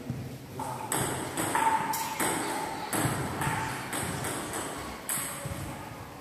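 Table tennis rally: the plastic ball clicking sharply off the paddles and the table about twice a second, beginning about a second in and stopping near the end.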